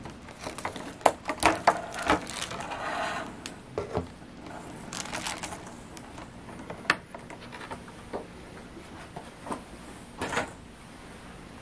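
Clear plastic blister packaging being opened and handled: crinkling with many sharp clicks and snaps in the first six seconds, then only scattered clicks as the plastic is moved aside.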